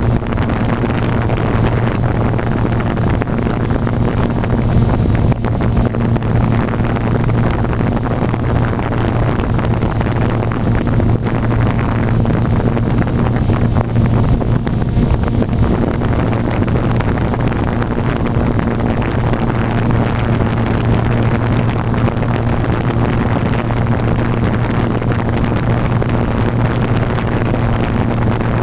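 Steady whirring hum of electric motors and spinning blades, with a constant rush of moving air.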